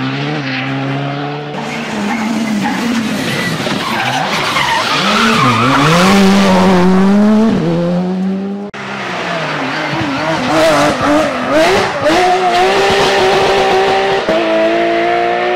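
Rally cars at speed: engines revving hard, the pitch rising and falling with throttle and stepping with gear changes, with tyre and gravel noise over the first half. About halfway through the sound breaks off sharply and a second car's engine takes over, changing gear several times near the end.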